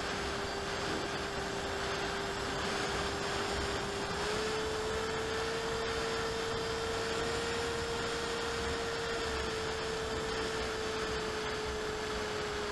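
Electric motor and propeller of an AXN Clouds Fly foam plane heard from its onboard camera: a steady whine that steps up in pitch about four seconds in as the throttle is raised, then eases down a little near the end. An even hiss of rushing air runs underneath.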